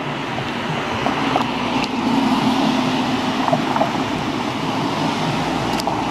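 Steady rumble of passing road traffic, with a low hum that grows stronger about a second and a half in, and wind on the microphone.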